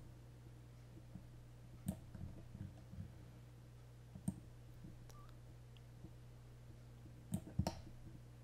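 Scattered clicks of a computer mouse and keyboard keys as shortcuts are pressed. They come singly and spread out, with two louder ones close together near the end, over a steady low hum.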